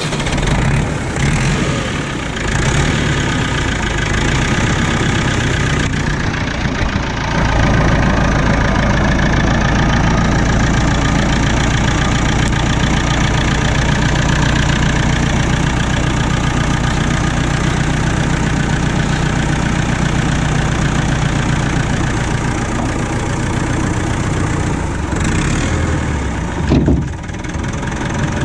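Massey Ferguson 65 tractor engine running steadily just after starting, settling into a steadier, slightly louder run about seven seconds in.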